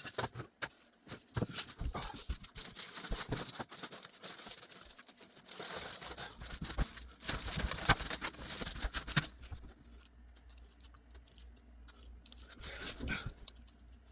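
Small clicks and taps with rustling and crinkling as small phone parts and plastic are handled on a workbench, busiest in the middle. A faint low hum sets in about six seconds in.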